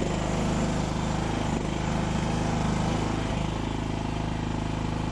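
Small engine of a Chinese mini skid steer running steadily while the machine works.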